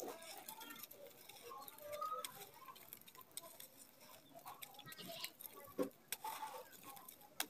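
Dry red dirt and grit trickling from a hand onto a loose pile of the same dirt: a soft patter with many small, sharp clicks of grains landing.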